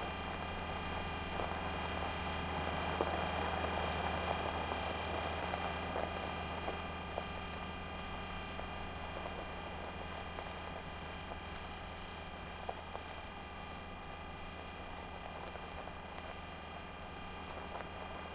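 Sound effect of the Curiosity rover driving: a steady motor hum with its wheels crackling over gravel, slowly getting softer over the second half.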